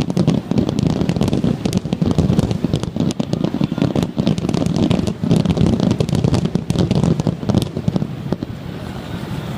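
Fireworks finale barrage: a rapid, unbroken run of booming shell bursts overlaid with dense crackling, easing off slightly near the end.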